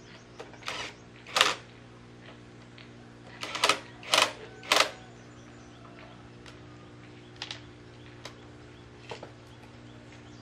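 Sharp metal clinks and taps of a hand tool working bolts on a single-cylinder diesel engine's block: a dozen irregular clicks, a cluster of the loudest about 3.5 to 5 seconds in, over a faint steady hum.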